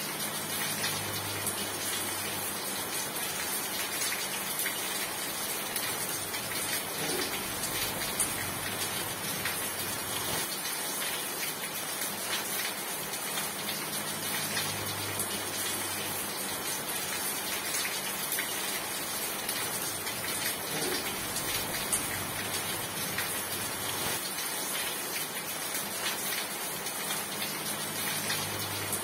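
Steady rain falling on a surface, a dense, even hiss of drops. A faint low hum swells and fades about every fourteen seconds underneath it.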